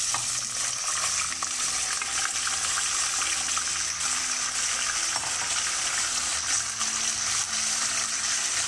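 Raw mutton pieces sizzling loudly in hot oil in a pressure cooker pot, the steady frying hiss of meat just added to the fat to be seared. A silicone spatula stirs and scrapes the pieces near the end.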